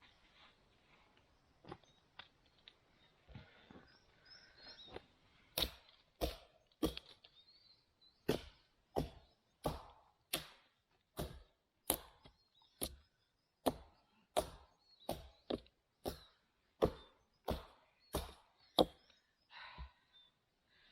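Hatchet chopping wood: a run of about twenty sharp chops at an even pace, roughly one and a half a second, starting about five seconds in, with light rustling and handling before them.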